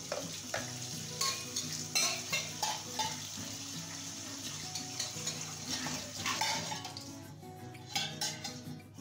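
A metal spoon clinking and scraping inside a small stainless steel cup as it is stirred, in many quick irregular taps. Soft background music plays underneath.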